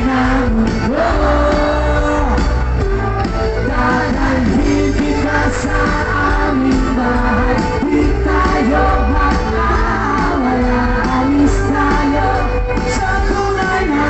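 Live band music with a lead singer, played over an outdoor concert sound system and heard from the crowd, with strong bass and a continuous sung melody.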